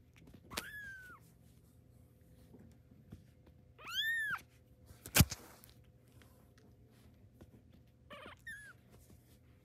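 A very young kitten mewing: three high-pitched mews about four seconds apart, each rising and falling, the middle one the longest and loudest. A sharp knock comes just after the middle mew.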